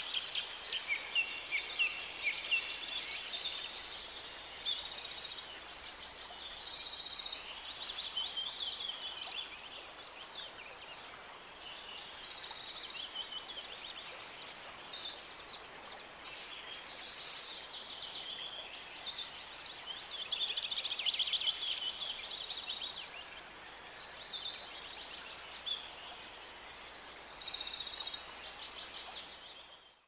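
Several songbirds singing at once, a dense mix of high chirps and short rapid trills that overlap continuously.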